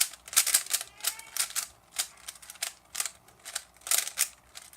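Rubik's cube being twisted by hand: irregular clicks as its plastic layers snap round, a few a second.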